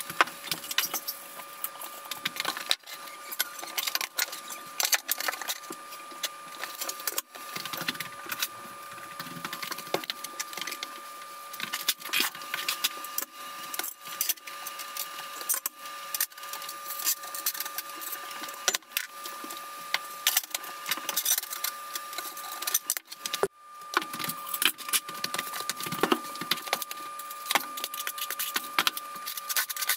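Sped-up tile-setting work sounds: a rapid, continuous clatter of clicks and knocks from tiles, levelling clips and tools being handled, over a steady faint hum.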